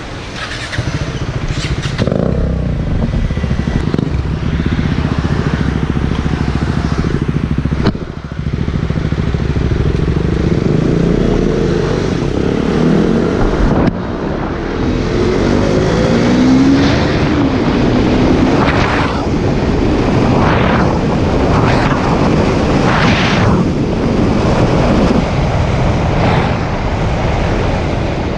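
KTM Duke 390 single-cylinder engine through its stock exhaust, pulling along an open road. The engine note dips briefly about eight and fourteen seconds in, then rises and falls with the throttle.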